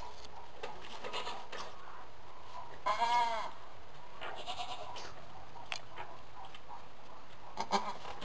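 A goat bleats once, about three seconds in: a single short call that rises and then falls in pitch. Faint rustles and clicks sound around it, with a brief louder one near the end.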